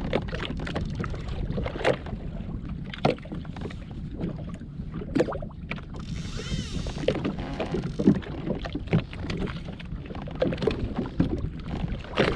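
Small waves slapping and knocking irregularly against the hull of a drifting Sea-Doo GTX jet ski, over a steady low rumble.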